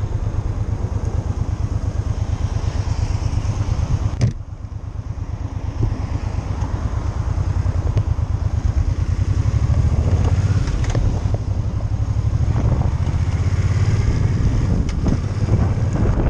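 Motorcycle engine running under way, a fast low pulsing with wind noise over it. The sound drops sharply about four seconds in, then grows louder as the bike pulls away out of the roundabout.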